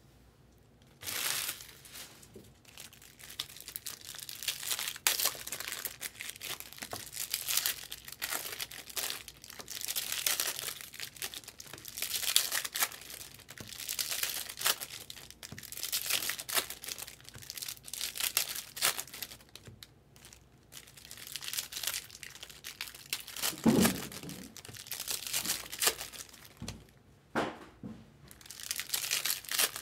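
Foil trading-card pack wrappers being torn open and crinkled, with cards handled and stacked, in repeated rustling bursts after a quiet first second. A dull thump about three-quarters of the way in.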